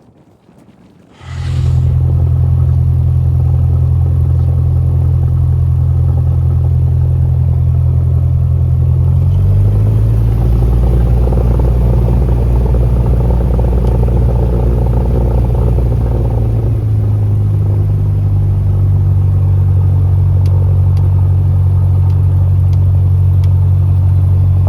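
Cessna 172's piston engine and propeller droning inside the cockpit, starting abruptly about a second in. The steady low drone shifts in tone twice along the way.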